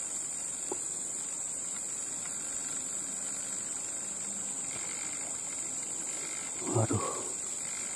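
Steady high-pitched drone of insects. A short muttered exclamation from a man comes near the end.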